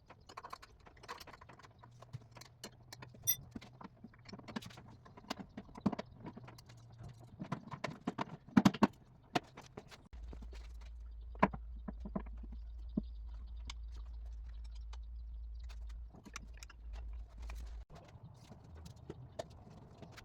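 Scattered clinks and knocks of hand tools being worked on metal, irregular and loudest about eight or nine seconds in. A steady low hum starts about ten seconds in and stops near the end.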